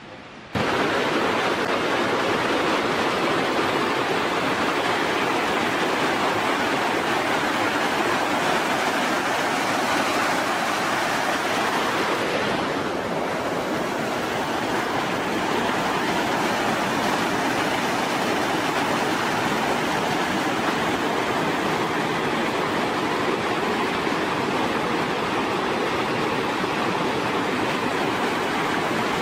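Whitewater of a mountain stream cascading over rocks: a steady rushing of water that cuts in suddenly about half a second in.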